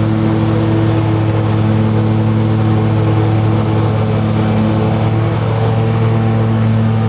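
Engine running steadily at a constant speed, a steady low hum with no revving.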